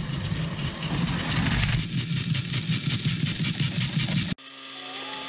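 Plarail battery-powered toy train (EF65 locomotive model) running on plastic track, its small motor whirring and its wheels clattering rapidly as it approaches. The sound cuts off abruptly about four seconds in and a quieter, steady tone takes over.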